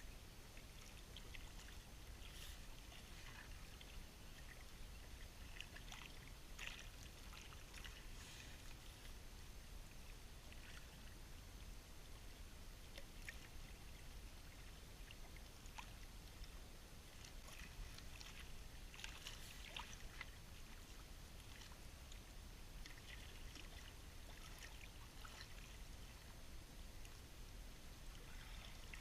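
Faint water sounds: scattered small splashes and trickling over a low, steady rumble.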